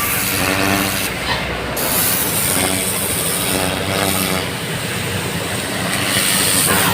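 A water pump running steadily, its hum swelling and easing, with a constant hiss of water spray from a flushing hose.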